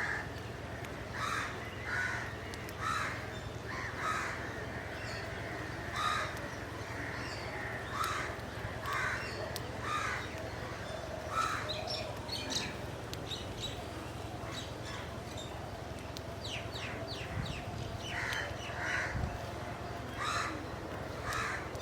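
Crows cawing repeatedly, about one call a second, with a gap of a few seconds past the middle. A quick run of high chirps comes in that gap, over a steady low hum.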